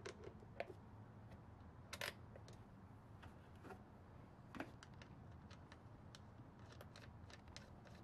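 Faint scattered clicks and taps of a wire's ring terminal and nut being fitted onto a battery post, the clearest about half a second, two seconds and four and a half seconds in.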